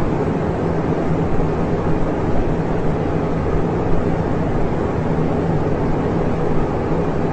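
A meme sound-effect clip: a steady, loud noisy rumble with a constant low hum, engine-like in character.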